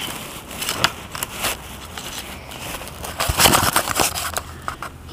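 Crackling and scraping of dry grass and dirt as a small toy engine is pushed through it close to the microphone, in irregular bursts that are busiest a little past three seconds in.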